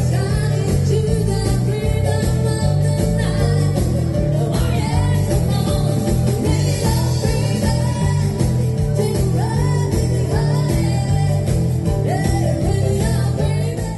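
Live dansband music: a rock'n'roll number with a singer and guitar over a steady, even bass-and-drum beat.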